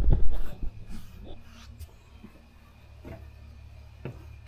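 Hands handling the exhaust manifold and engine parts of a Detroit Diesel 12V71: a rustle at the start, then a few faint taps over a low steady hum.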